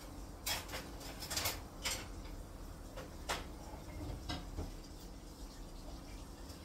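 English bulldog chewing a snack, making short, sharp crunching and smacking clicks: a cluster in the first two seconds, then a few scattered ones.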